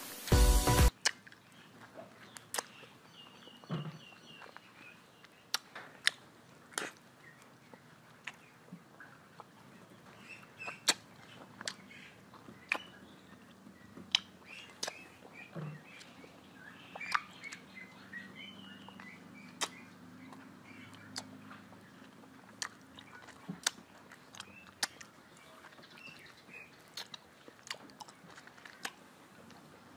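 Close-up mouth sounds of eating mango slices: irregular wet lip smacks, sucking and chewing clicks. Background music cuts off within the first second.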